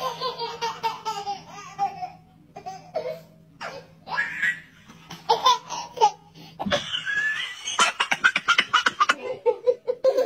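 A toddler laughing and giggling in repeated high-pitched bursts, then, after a cut, a quick run of short laughs.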